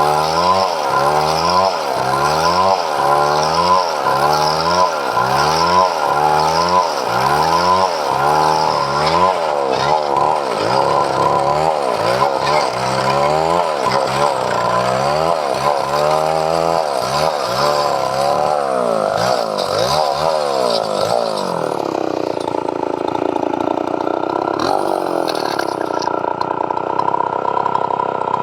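Chainsaw running while cutting padauk wood, its engine pitch rising and falling in a regular rhythm about every three-quarters of a second, then settling into a steadier whine for the last few seconds.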